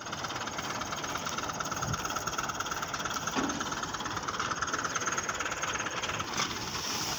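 Wheat-harvesting machinery running steadily: an engine with a fast, even throbbing pulse.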